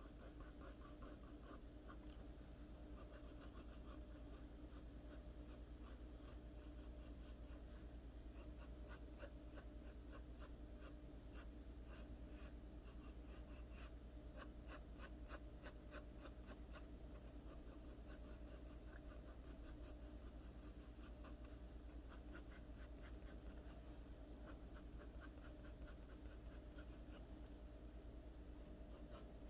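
Graphite pencil scratching on drawing paper in many quick, short strokes, laying in strands of hair, in runs that are busiest in the middle.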